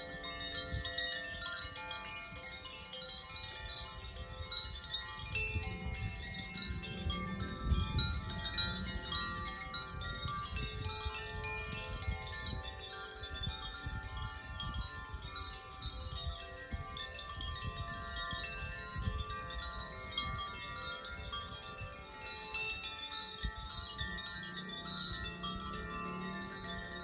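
Handheld tuned chimes being swung, with many overlapping bell-like notes ringing and tinkling continuously. Under them runs an uneven low rumbling noise, strongest about six to eight seconds in.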